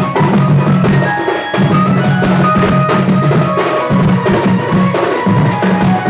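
Sambalpuri folk music: rapid drumming with short melody notes above and low held notes underneath.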